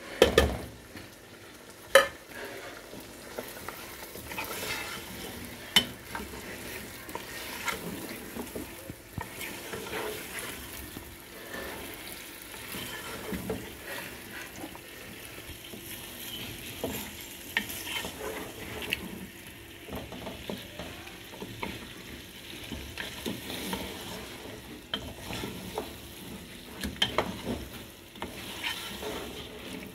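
Meat frying in ghee in a steel pot, sizzling steadily while a wooden spoon stirs and scrapes through it, with a few sharp knocks, the loudest about two seconds in. This is the browning (bhuna) stage of the meat with its spices.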